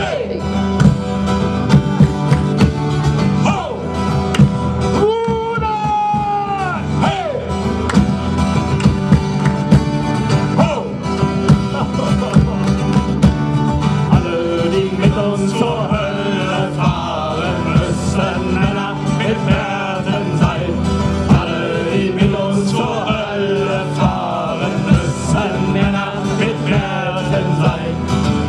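A live folk band playing a song: male voices singing over a strummed twelve-string acoustic guitar, fiddle, hand drum and keyboard, with a steady beat.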